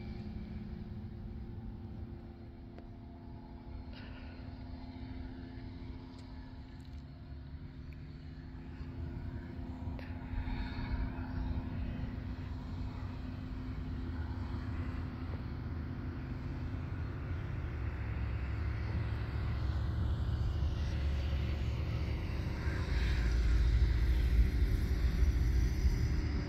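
Phantom ultralight's engine and propeller droning steadily in flight, growing louder as the aircraft comes closer, with a deep low rumble near the end.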